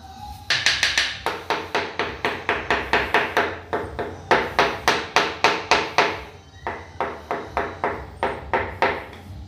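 Ceramic baseboard tiles being tapped down into their mortar bed along a wall: a fast run of sharp, ringing taps, about three a second, with a short break about two-thirds of the way through.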